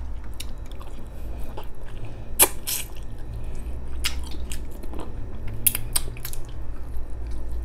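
Close-miked biting and chewing of braised pork rib meat off the bone: scattered wet mouth clicks and smacks, with one sharper snap about two and a half seconds in.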